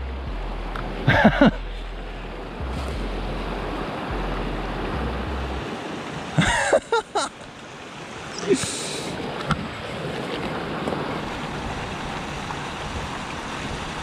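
Mountain stream running over rocks in small cascades, a steady rush of water, with wind rumbling on the microphone for the first five seconds or so. A few short vocal sounds break in about a second in and again around six to seven seconds.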